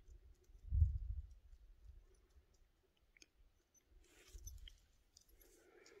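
Faint footsteps and scuffs on rock: scattered light clicks with a few short low thumps, the loudest about a second in.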